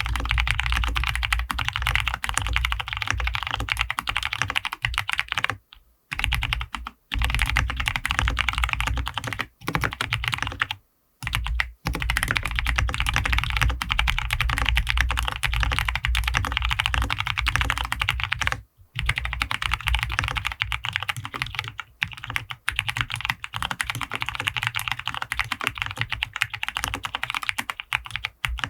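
Continuous fast typing on an ergonomic-layout mechanical keyboard with Cherry MX Brown switches, PBT keycaps, a PP plate and full foam fill, the key strokes running in dense streams with a few short pauses.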